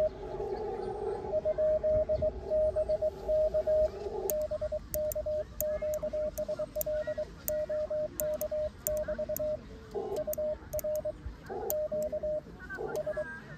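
Morse code (CW) beeping at one steady pitch from an amateur radio transceiver. For about the first four seconds it is a received station's signal with a band of static around it. After that come cleaner sidetone beeps as the operator sends on a paddle key, spelling "BK QSL OK BT" and "UR QSL CARD", with light clicks.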